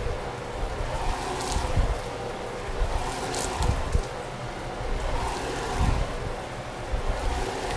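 Food sizzling in hot oil in a frying pan, a steady crackling hiss. There are a few low thumps from handling, and brief sharper spits.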